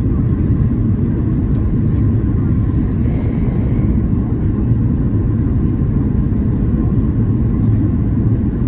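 Steady low rumble inside the cabin of a Boeing 737-800 on approach with flaps at 30: its CFM56-7B engines and the airflow around the airframe, heard from a window seat.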